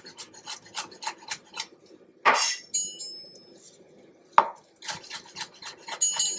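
Chef's knife chopping fresh parsley on a bamboo cutting board, quick taps about three or four a second, with two louder knocks about two seconds and four seconds in.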